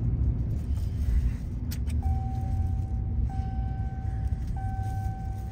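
Low, steady road and engine rumble inside a moving car's cabin. About two seconds in, a steady electronic beep tone starts and repeats in long notes roughly every second and a quarter.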